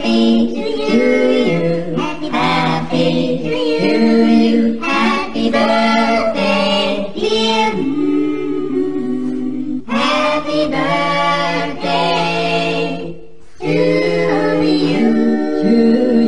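A group of voices singing a song with long held notes, as a choir; it dips briefly near the end.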